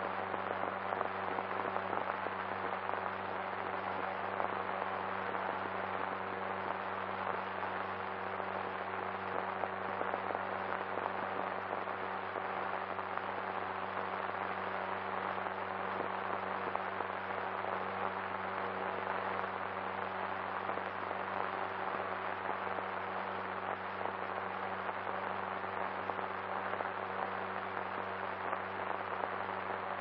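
Steady crackle and hiss of an old optical film soundtrack with a low hum, with no speech or music.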